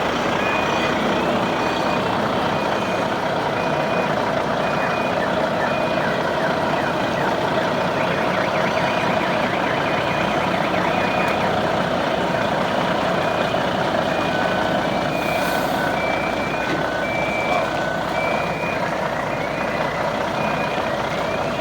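Truck engine running steadily while a reversing alarm sounds a string of short, evenly spaced beeps. Midway through, for a few seconds, a second, lower-pitched beeper joins in.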